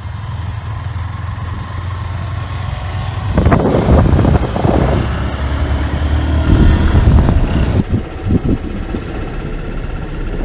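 Motorcycle engines running steadily on the move, a low hum. From about three seconds in, a louder, gusty rushing noise joins it.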